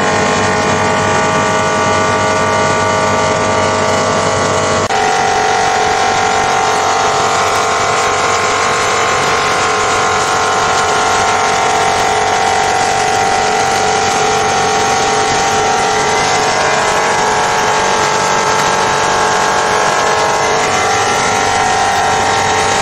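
Gravure copper cylinder polishing machine running: its high-speed motor drives a cloth polishing wheel against the rotating copper cylinder, mirror-polishing the copper layer before engraving. A loud, steady whine of several tones over a hiss, which changes abruptly about five seconds in; later some of the tones glide upward.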